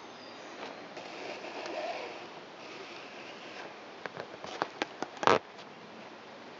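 Hands working the camper's canvas and heavy-duty thread close to the microphone: a soft rustle, then a run of sharp clicks and knocks from about four seconds in, the loudest a short scrape just after five seconds.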